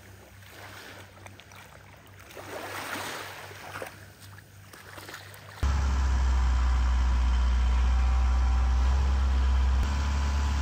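Small waves washing on a shingle beach. About halfway through, a sudden cut to a longtail boat's engine running steadily and loudly under way.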